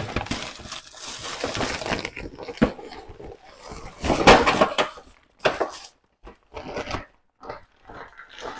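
Plastic shopping bag rustling and crinkling as it is handled and its contents taken out, in irregular bursts, loudest about four seconds in.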